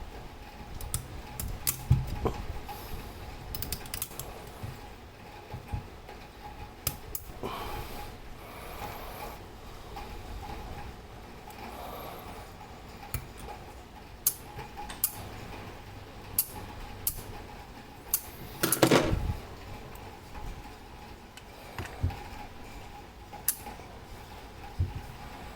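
Small metal clock-movement parts and tools being handled: scattered clicks and light metallic clinks, with a louder clatter about three-quarters of the way through.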